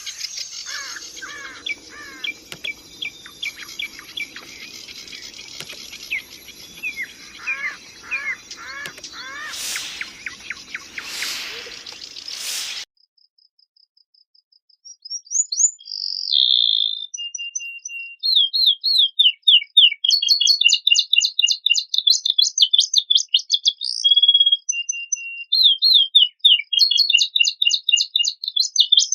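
A noisy recording of repeated downward-sliding bird chirps cuts off abruptly about 13 seconds in. After a couple of seconds of near silence, a domestic canary sings long runs of fast, varied trills and rolls.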